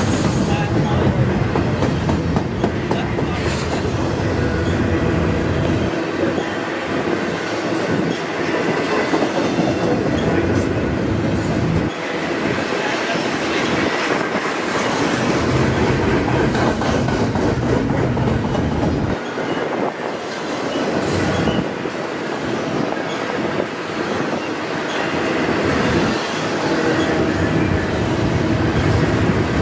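Double-stack intermodal freight train of well cars rolling past close by: a steady loud rumble with wheels clicking over the rail joints, the deep low end easing off for a moment every several seconds as the cars go by.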